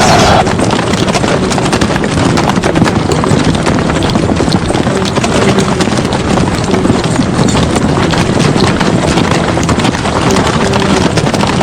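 Many horses galloping together, a dense, unbroken clatter of hoofbeats.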